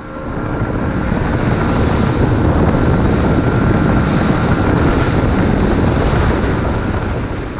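Fishing boat running at speed: wind buffeting the microphone over the rush of water and a steady engine drone. It fades in over the first second or so and fades down near the end.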